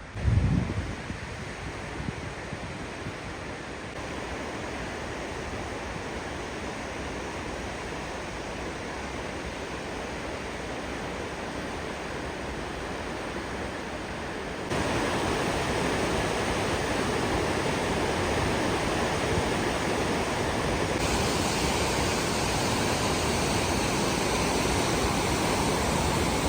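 Rushing water of a river and waterfall, a steady dense rush that grows louder in steps. A low thump comes just at the start.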